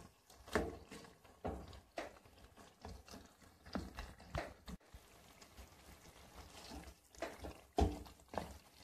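Plastic slotted spatula scraping and knocking against a non-stick pot as chicken and tomatoes are stir-fried, in irregular strokes about one or two a second, with a short lull about midway.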